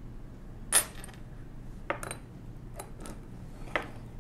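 Small metal parts from a mechanical calculator (levers, bushings, springs) clicking against each other and against a wooden tabletop as they are picked up and set down: a handful of separate clicks, the sharpest one under a second in.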